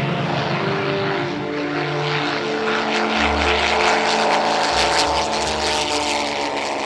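Supermarine Spitfire's Rolls-Royce Merlin V12 engine running at full takeoff power as the aircraft lifts off, loud and steady, its pitch sliding down in the second half.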